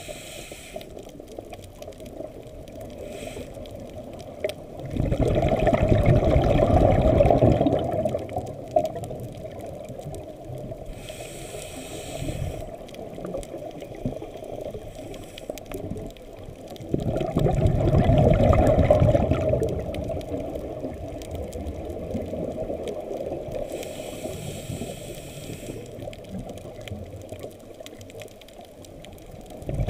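Scuba diver breathing through a regulator underwater, slowly: two long rushes of exhaled bubbles, about five and seventeen seconds in, with fainter hisses of inhaling between them.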